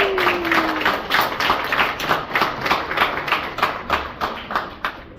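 Audience applauding, the clapping dying down toward the end, with one voice briefly calling out at the start.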